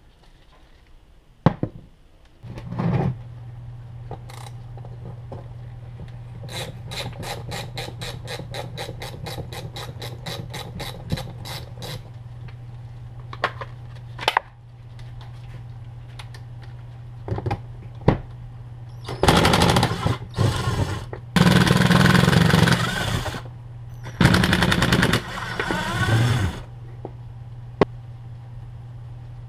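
A hand ratchet clicks about five times a second for several seconds. Then a Ryobi cordless driver runs in three loud bursts of rapid hammering, each two to three seconds long, backing the nuts and bolts out of a winch solenoid pack.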